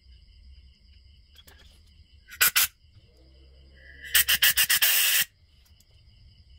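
Cleaner sprayed through a two-stroke chainsaw carburettor from a straw nozzle to clear its passages: a short double blast about two and a half seconds in, then a quick run of blasts about four seconds in that merges into a second-long hiss and cuts off sharply. Crickets chirp steadily underneath.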